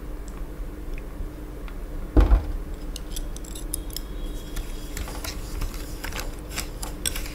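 A single thump about two seconds in, then a metal spoon stirring sugar, shrimp salt and fish sauce in a small glass bowl, clinking and scraping against the glass, the clicks getting busier toward the end.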